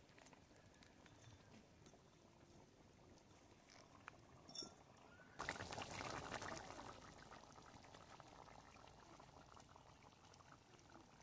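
Chicken and papaya curry simmering faintly in the pot with a soft bubbling crackle, which grows louder for a second or two about five and a half seconds in. The curry is nearly cooked.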